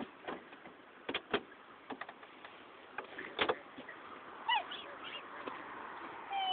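Black swans' beaks tapping sharply on a car, several pecks in the first few seconds, then two short calls from the swans in the second half, the first falling in pitch.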